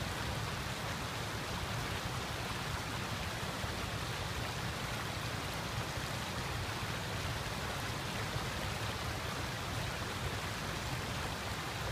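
River water flowing steadily over a shallow bed: an even, unbroken rushing hiss.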